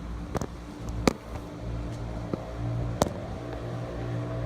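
Handling noise from a camera being set up: three sharp knocks and clicks, the loudest about a second in, over a steady low hum.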